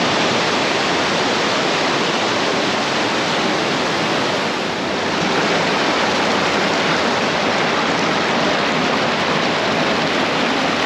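Fast-flowing river water rushing loudly and steadily close by.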